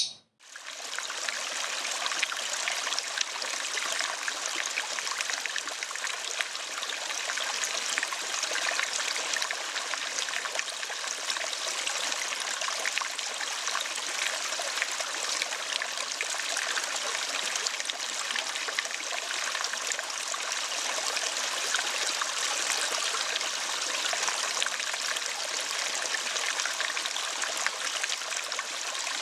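Running water, a steady trickle like a small stream, rising in just after a lovebird's trill cuts off at the start.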